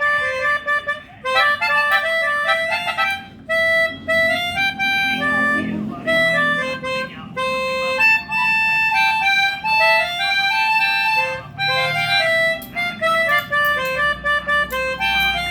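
A pianika (melodica) playing a melody of held reedy notes one at a time, with quick runs of shorter notes and brief breaks between phrases.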